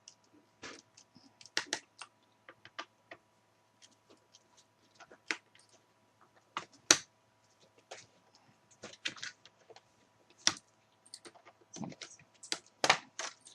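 Scattered small clicks and taps of a screwdriver and plastic parts on a laptop's underside, as the hard drive cover is unscrewed and lifted off. The clicks come irregularly, with a louder snap about seven seconds in.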